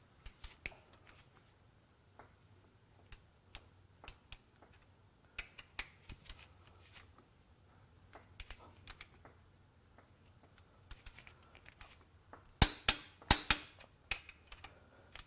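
Torque wrench ratcheting in short strokes on connecting rod cap bolts, tightening them to the final 70 ft-lb stage: scattered light clicks, then a few louder sharp clicks near the end.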